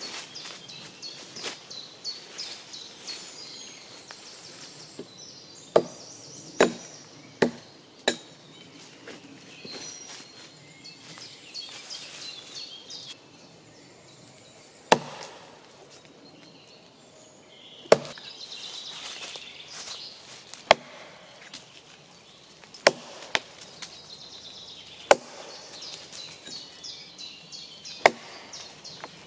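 Axe chopping into a fallen birch log: about a dozen sharp, separate blows at uneven intervals, a few close together and others several seconds apart.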